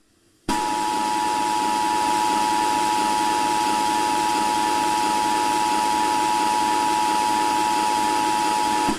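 Emergency Alert System attention signal: a steady two-tone alarm held over a bed of static hiss, starting about half a second in and cutting off at the end.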